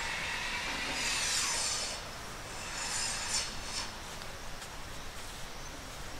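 Hands briskly rubbing and scratching a long-haired dog's thick coat, a rustling hiss of fur that comes in two stronger bursts, about a second in and about three seconds in.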